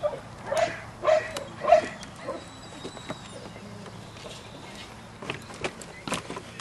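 Belgian Malinois puppy giving three short barks in quick succession, then a few sharp knocks near the end.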